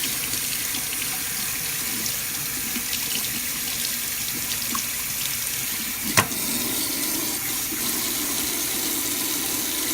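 Kitchen sink tap running steadily as raw pork chops are rinsed under it, with one sharp knock about six seconds in.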